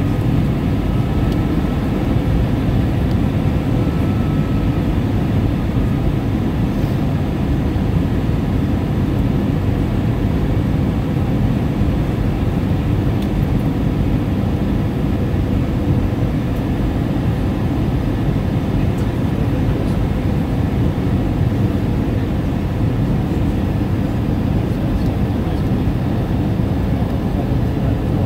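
Steady cabin noise of a jet airliner in flight, heard from a window seat: a continuous low rumble of engines and airflow.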